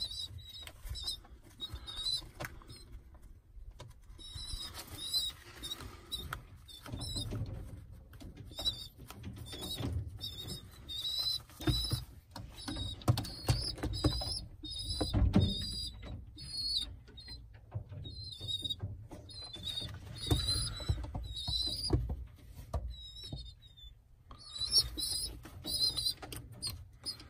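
Young pigeon (squeaker) giving high, thin squeaks in short repeated runs, with soft scuffles and wing flaps against a hand and the wooden loft floor.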